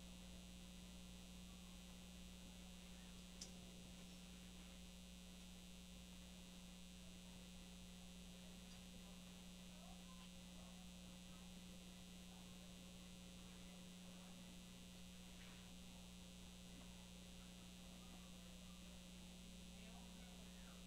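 Near silence over a steady low electrical hum, with one faint click about three and a half seconds in.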